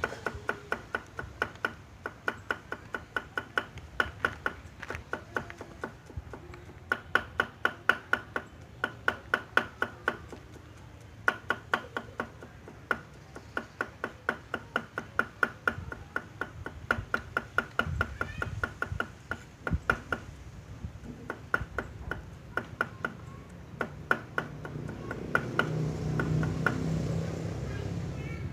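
A knife chopping on a cutting board: quick, even strokes, about three or four a second, in runs broken by short pauses, each stroke with a brief ring.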